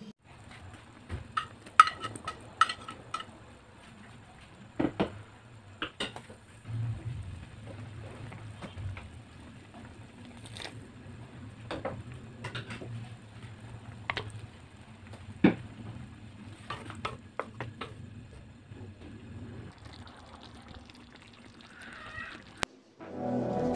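Chicken liver and sauce simmering in a wok, bubbling softly with sharp pops and clicks scattered through, the loudest about two seconds in. Music comes in right at the end.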